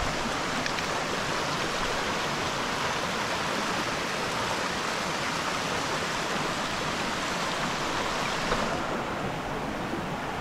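Waterfall water rushing steadily in an even hiss, its higher part dulling slightly near the end.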